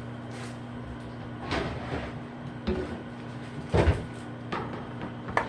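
Kitchen items being handled and set down on a counter: a few knocks and clatters, the loudest nearly four seconds in. A steady low hum runs underneath.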